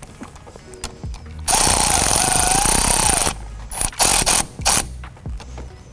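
Milwaukee Fuel cordless ratchet spinning a battery terminal clamp nut down for about two seconds with a wavering motor whine, then several short bursts as the nut snugs tight.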